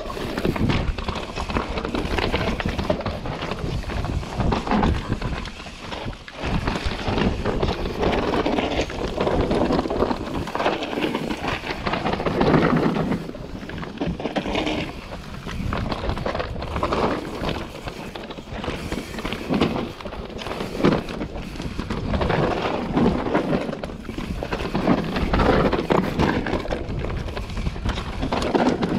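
Mountain bike descending a rough dirt-and-rock trail: tyres rolling and crunching over dirt, roots and stones, with the bike clattering over the bumps in an uneven run of knocks and surges.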